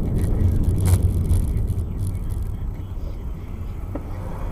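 Low engine and road rumble heard from inside a car's cabin, growing steadily quieter as the car slows, with a single sharp click about a second in.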